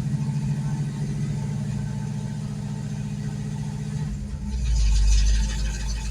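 Carbureted engine freshly started and running at a steady idle. About four and a half seconds in, the sound shifts to a deeper, louder rumble with added hiss.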